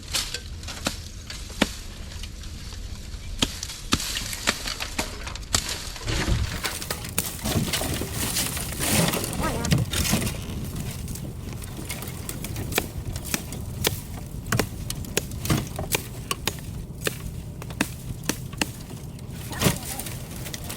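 Willow brush being cut and broken: irregular sharp snaps and knocks of branches, with a busier stretch of crackling and rustling near the middle.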